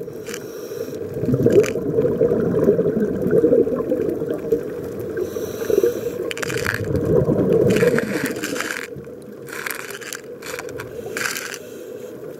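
Scuba regulator breathing heard underwater: a steady crackling rumble of exhaled bubbles, with several short hisses in the second half.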